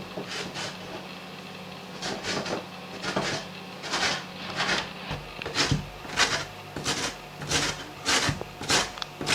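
A parsnip being grated by hand on a kitchen grater: a run of short scraping strokes, sparse at first and then steady at about two a second.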